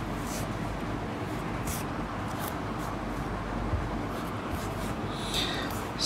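Steady room noise and hiss with a few faint, short scratching sounds.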